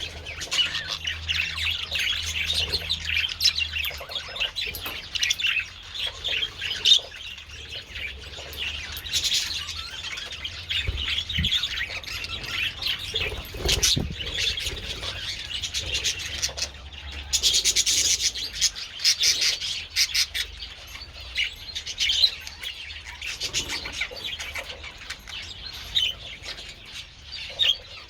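A flock of budgerigars chattering and warbling continuously in many overlapping chirps, with a busier burst of chatter about two-thirds of the way through.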